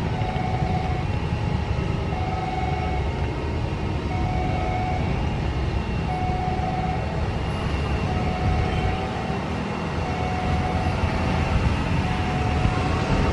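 Airbus A320 jet engines running at low power on the runway: a steady rumble with a thin steady whine above it.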